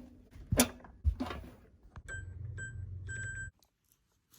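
A couple of sharp knocks, then three electronic beeps over a low hum, the third beep longer, before the sound cuts off suddenly.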